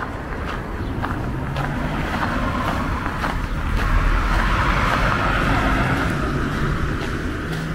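A car driving past on the street. Its tyre and engine noise swells to a peak about halfway through, then fades.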